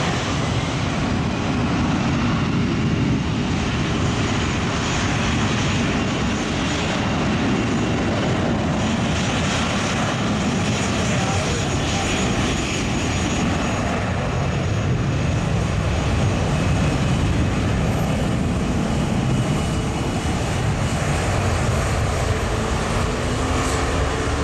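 Boeing 737-800's CFM56-7B turbofan engines running at taxi power as the airliner rolls past, a steady jet rumble and hiss. Near the end a low tone rises in pitch.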